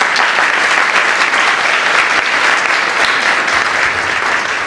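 Hall audience and stage cast applauding, a dense, steady clapping.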